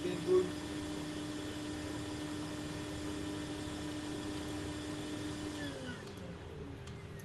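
Small electric blower motor humming steadily, then switched off about six seconds in, its pitch sliding down as it spins to a stop.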